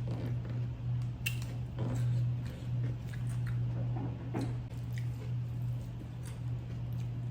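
Chewing and biting with soft wet mouth sounds and occasional small clicks, over a steady low hum.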